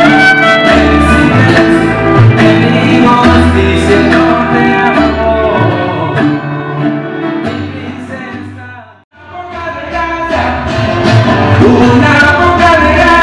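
Music with singing. It fades down to a moment of silence about nine seconds in, then a piece starts up again.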